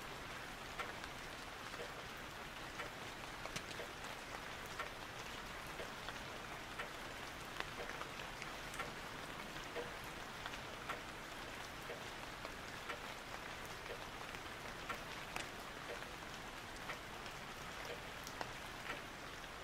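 Steady rain: an even hiss with scattered light drop ticks.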